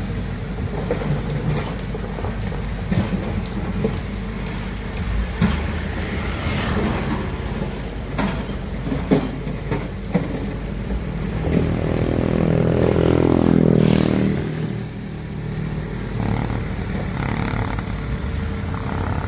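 Heavy construction machinery at work: a big diesel engine running steadily with frequent clanks and knocks. About two-thirds of the way through it revs up under load to its loudest, then drops back.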